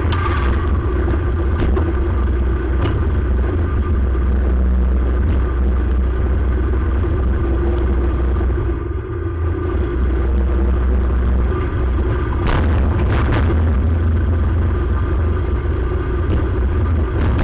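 Predator 212 single-cylinder engine in a VW Baja Bug running steadily under load off-road, with a heavy low rumble. It eases off briefly about nine seconds in, and a few knocks and rattles come around thirteen seconds in.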